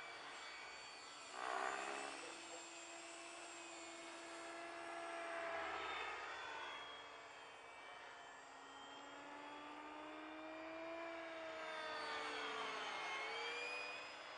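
Electric ducted fan of a radio-controlled F-16 model jet whining in flight, its pitch sliding and its loudness swelling and fading as it passes back and forth, several times.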